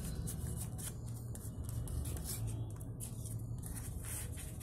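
Paper being handled: light, irregular rustles and small taps.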